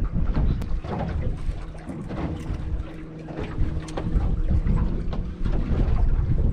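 Wind buffeting the microphone on an open boat on choppy water, with a steady low hum underneath and scattered small knocks and splashes.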